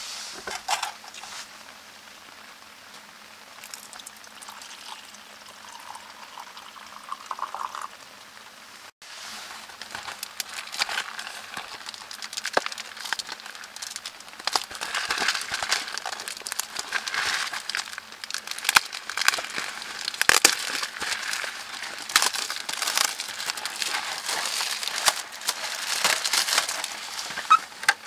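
Plastic packaging crinkling and crackling as a red instant-noodle bowl is unwrapped and its lid peeled back, in a dense run of small sharp crackles. The first part is quieter, and the crinkling picks up about nine seconds in.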